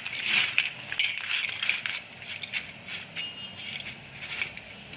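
Crispy fried potato french fries crunching in irregular crackly bursts, busier in the first two seconds and sparser after.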